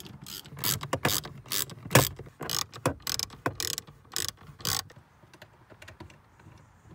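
A socket ratchet clicking as it undoes a 10 mm bolt, in a run of sharp clicks, two or three a second, that stops about five seconds in.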